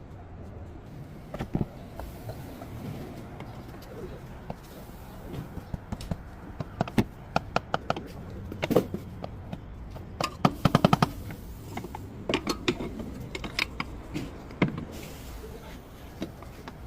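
Irregular metallic knocks and clanks, as of tools and parts being handled during drive shaft work, with a fast run of clicks about ten seconds in.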